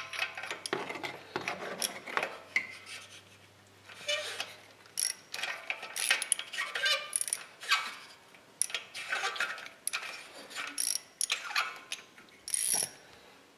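Ratchet wrench clicking in repeated short runs with brief pauses, as it turns an O2 sensor socket to back out an upstream oxygen sensor that has already been broken free.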